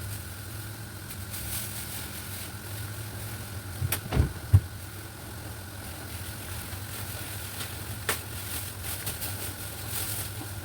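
A steady low machine hum, like a running appliance motor, with two or three heavy thumps about four seconds in and a sharp click near the eight-second mark.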